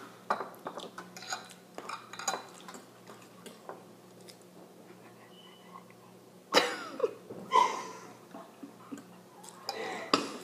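Metal spoon scraping and clinking against a ceramic cereal bowl as cereal is scooped and eaten, in scattered small clicks. Two louder short vocal sounds break in about two-thirds of the way through, and another comes near the end.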